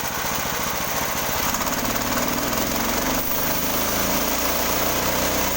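Small petrol engine of a portable sawmill running steadily as the saw is tried on wood; its note changes about a second and a half in.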